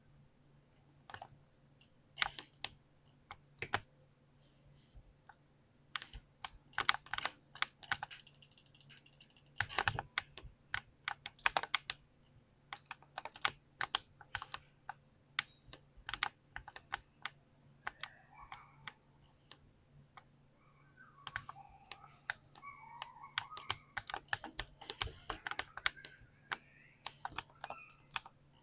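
Mechanical keyboard with lubed Cherry MX Speed linear switches being typed on: irregular keystroke clicks, sparse at first and then fast and dense from about six seconds in.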